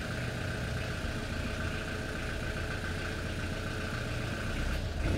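Volvo Penta marine diesel engine idling steadily, getting a little louder near the end. The owner blames an erratic electronic control unit (ECU) for the engine cutting out and running weak.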